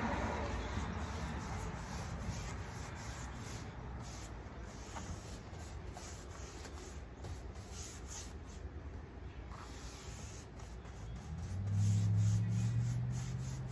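Bristle paintbrush swishing in repeated short strokes across rough, bare wooden clapboard siding, brushing on a thin soaker coat. A low steady hum sets in near the end.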